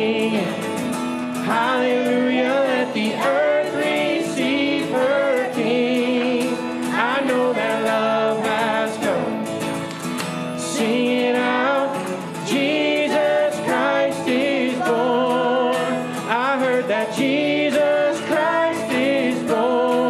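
Live worship band playing a Christmas song: male and female singers over strummed acoustic guitar, keyboard and drums.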